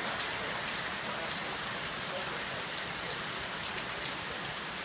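Heavy cloudburst rain, a steady hiss of downpour with sharper drop hits now and then.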